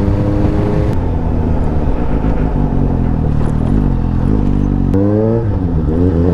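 Suzuki GSX-S750's inline-four engine through a MIVV Suono slip-on exhaust, under way. The revs climb steadily until the throttle comes off about a second in. The engine then runs lower with small rises and falls, picks up sharply about five seconds in, dips briefly, and pulls up again near the end.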